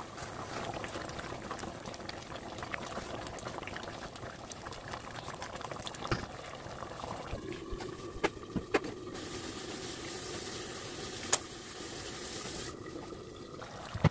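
Soup bubbling at a boil in a large pot, stirred with a spatula at first. A glass lid goes on around the middle and muffles the bubbling, with a few sharp clinks, the loudest about eleven seconds in, and a steady hiss for a few seconds.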